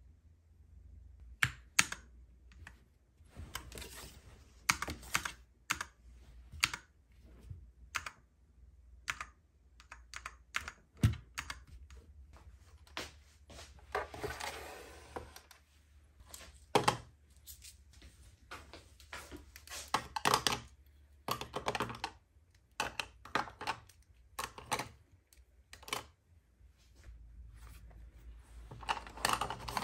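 Desk items being handled and set down on a hard desktop: irregular clicks, taps and knocks, with a longer scraping rustle around the middle.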